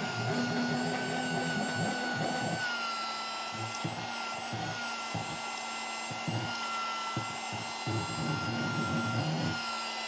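Miniature handheld vacuum cleaner's small motor running with a steady high whine that wavers a little in pitch, with irregular low knocks and scrapes as its nozzle is moved over crumbs.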